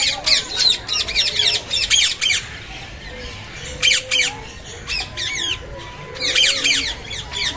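Several birds squawking: harsh, sweeping calls in quick clusters, with a lull in the middle and another loud burst near the end.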